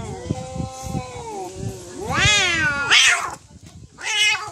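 Two cats yowling at each other in a standoff: long, wavering, drawn-out yowls, then a louder yowl that rises and falls about two seconds in. A short, harsh burst follows near three seconds, and a brief screech comes as the cats break into a fight near the end.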